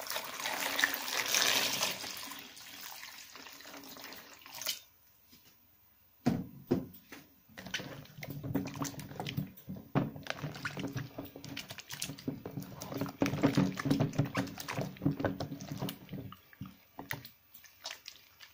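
Water poured onto a bowl of recycled soap bars for about five seconds. After a short pause, hands squish and rub the soaked soap in the water, with irregular wet squelching and splashing that dies away near the end.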